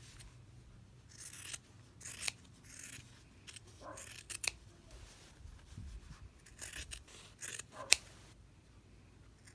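Scissors snipping through layered cotton fabric and batting: a run of short, irregular cuts trimming down a seam allowance to reduce bulk, with the loudest snip near the end.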